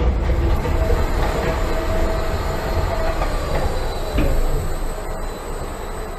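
Intamin inverted roller coaster train rolling slowly along its steel track into the station, the wheels rumbling and clacking. A thin whine runs for a couple of seconds near the start, and a single knock comes about four seconds in. The rumble eases off as the train slows.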